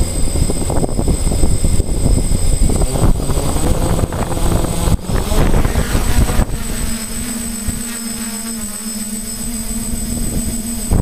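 Hexacopter drone's motors and propellers running as it lifts off the runway, heard from its onboard camera: heavy low rumbling under a thin high whine, settling about six and a half seconds in into a steadier hum as it climbs.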